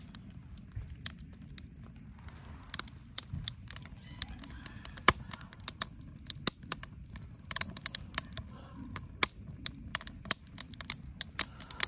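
Split firewood burning in a steel campfire ring, crackling with frequent irregular sharp pops and snaps; the loudest pop comes about five seconds in.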